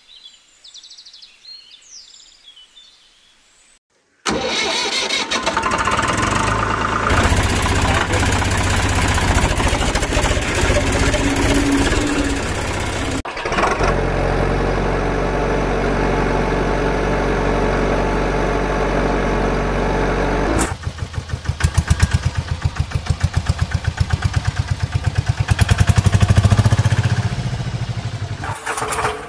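Faint outdoor background with a few bird chirps, then, about four seconds in, a loud motor-vehicle engine sound that starts suddenly and runs steadily. It changes to a different steady engine note about halfway. In the last third it turns into a rhythmic chugging that grows louder.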